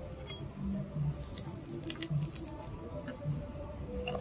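Quiet sounds of eating at a table: a few light clicks and taps as bread is spread and eaten, over a low background murmur.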